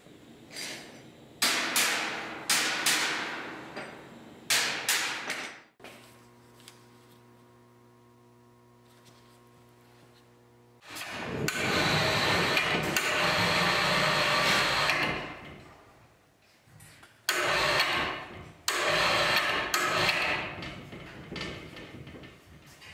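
Hammer blows on torch-heated steel plates of a welded steel sculpture, bending them into place: a series of sharp strikes that ring and die away, then a faint steady hum, about four seconds of a loud steady rushing noise, and more strikes in the last few seconds.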